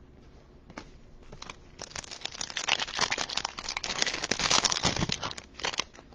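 Foil wrapper of a baseball card pack being torn open and crinkled by hand, a dense run of rustling and crackling that builds about a second in and fades near the end.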